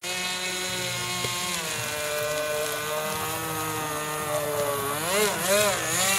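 Radio-controlled model boat's small engine running at high revs on the water, a steady buzzing drone whose pitch dips and rises about three times near the end as the throttle is eased and opened again.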